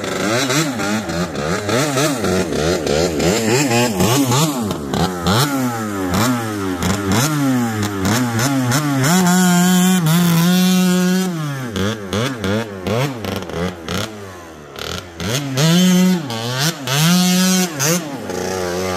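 1989 Kawasaki KX80 single-cylinder two-stroke dirt bike engine revving up and dropping back again and again as the bike is ridden and shifted through the gears. About halfway through the revs are held high for a couple of seconds; then the engine gets quieter before revving up again near the end.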